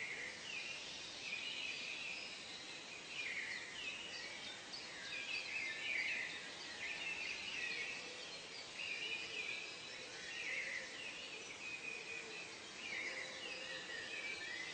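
A chorus of birds calling at once, short chirps and trills overlapping without a break, over a steady background hiss.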